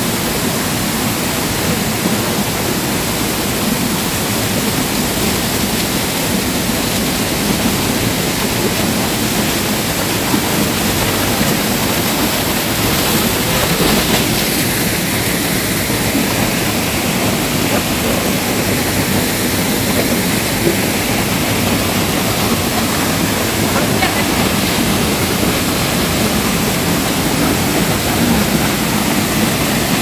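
Loud, steady rushing of a large waterfall with a heavy flow of water.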